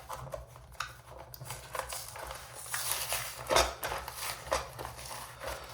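A three-pack of new door hinges in its packaging being handled and pulled at to get it open: irregular rustles, scrapes and small clicks.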